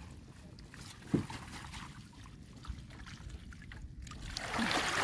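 Water sloshing quietly around a mesh fish-trap net being handled in shallow floodwater. Near the end, a rising rush of water streams and splashes off the net bag as it is hauled up.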